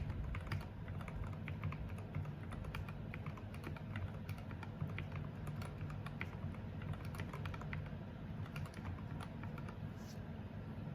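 Typing on a 75% mechanical keyboard with MDA-profile keycaps: a quick, irregular run of keystroke clicks with no pauses.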